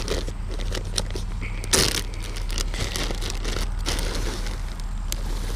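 Hand scooping sweet feed pellets in a plastic zip-top bag: irregular crinkling of plastic and rattling of pellets, with one sharper rustle a little under two seconds in.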